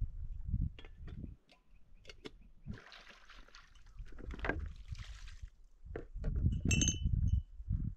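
Water hissing and splashing from a hose pipe for a couple of seconds, over low rumbling wind on the microphone and scattered clicks and knocks on stones. A short high squeak comes near the end.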